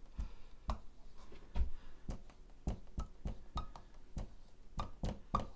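Dry-erase marker writing on a whiteboard: a string of irregular taps as the tip strikes the board, some with a short squeak as it drags.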